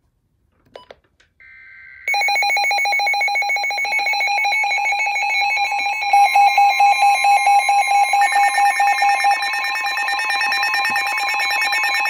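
Several NOAA weather alert radios going off at once for a severe thunderstorm warning. After a short burst of data tone about a second and a half in, a steady warning alarm tone and the radios' rapid electronic beeping start about two seconds in and keep on loud, with another radio's higher beeping joining about eight seconds in.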